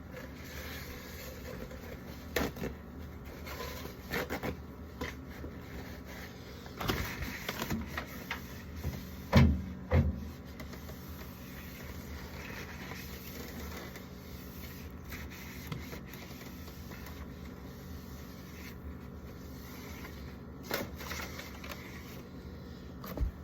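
Things being handled and set down while a fridge is cleaned out: scattered knocks and scrapes, with two louder thuds close together about ten seconds in, over a steady low hum.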